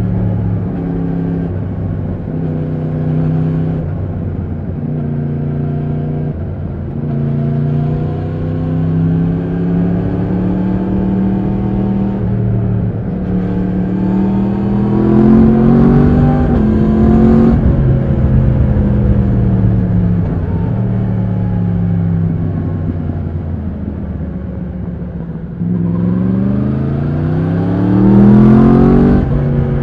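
2020 Yamaha MT-10's crossplane inline-four engine running under way. Its pitch climbs in steps and falls with the throttle. A fast rev climbs near the end and is the loudest part.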